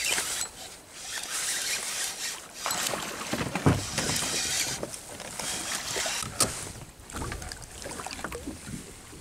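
A hooked lake trout being reeled in beside a kayak: a spinning reel cranking, and water splashing and sloshing against the hull in uneven patches. A sharp thump comes about three and a half seconds in, with a smaller one a few seconds later.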